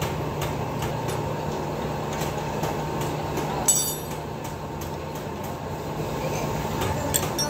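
Steady mechanical rumble, with wrenches clinking on a steel hydraulic cylinder rod end: one sharp ringing metal clink about halfway through and a lighter one near the end.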